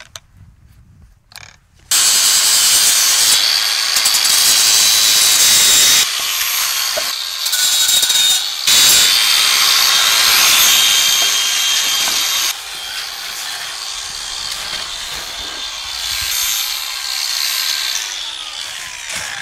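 Cordless angle grinder with a flap disc grinding the cut wire edges of a shopping-cart basket smooth. It starts about two seconds in and runs with a steady high whine, the grinding noise rising and falling as the disc meets and leaves the wire, and winds down near the end.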